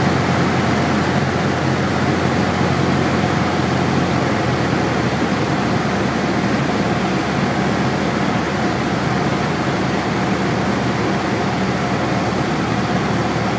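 Steady drone of a Cessna 172's piston engine and propeller heard inside the cabin, on final approach.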